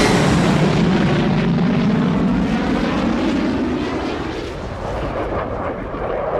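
A jet aircraft passing low overhead: just after its whine drops in pitch, a loud, low rumbling roar carries on and eases slightly as the jet moves away.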